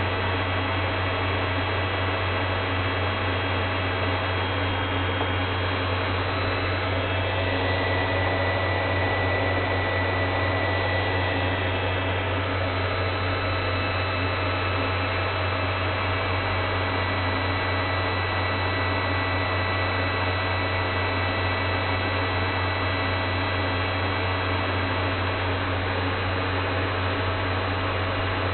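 Steady low hum with even hiss, unchanging, with no distinct events.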